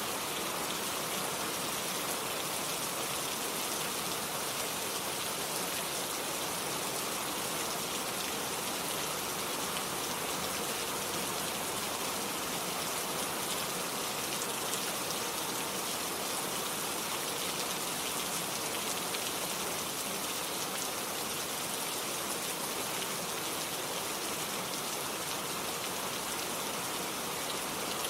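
Steady rain falling and pattering on surfaces, an even hiss with fine drop ticks that doesn't let up.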